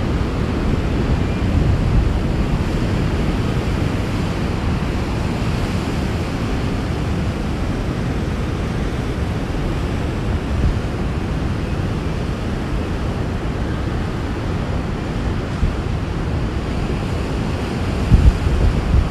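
Heavy ocean surf breaking in a steady rush of noise, with wind rumbling on the microphone and a few stronger gusts near the end.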